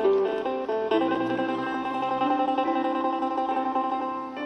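Background music: a quick run of notes in the first second, then a chord held for about three seconds.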